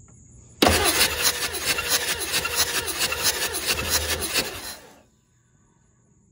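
Ford 7.3 Powerstroke V8 diesel cranking on its starter without firing, its glow plugs out and the engine kept from starting, during a compression test of cylinder five, which builds about 333 psi. A loud, rhythmic cranking sound starts about half a second in and cuts off suddenly after about four and a half seconds.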